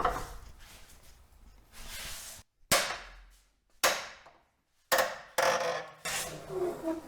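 About five sharp metallic blows, each ringing briefly before dying away, typical of a hammer striking steel on the car's underside while working seized subframe bolts.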